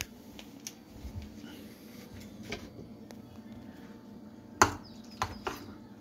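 About five light knocks and clinks of kitchenware (spoon, bowl and sauce bottles) on a stone kitchen counter as a bowl of instant noodles is stirred and seasoned, the loudest about three-quarters of the way through.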